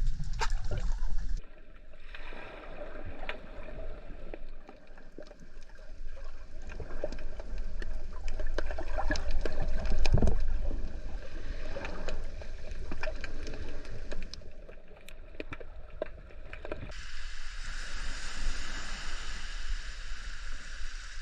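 Underwater ambience heard through a camera housing: many sharp scattered clicks and crackles over a low water rumble, with one louder low thump about ten seconds in. About seventeen seconds in the sound turns into a brighter, steadier hiss.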